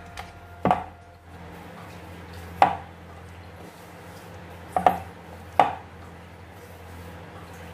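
Sharp wooden knocks of a rolling pin and round wooden rolling board while chapati dough is folded and rolled out, four of them at uneven gaps, with a steady low hum underneath.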